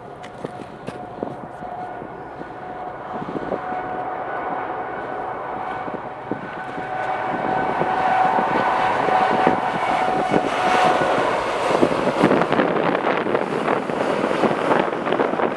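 Jet airliner passing close: a steady engine whine builds for about eight seconds alongside a broad rushing jet noise. The whine fades near the end while the rushing noise stays loud.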